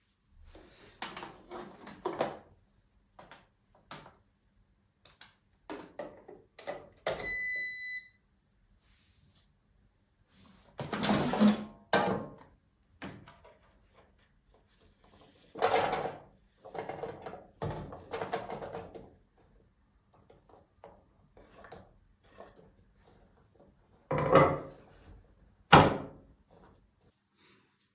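Kitchen work sounds: irregular knocks and clatters of cupboards, drawers and dishes being opened, closed and set down. A short electronic appliance beep sounds about seven seconds in.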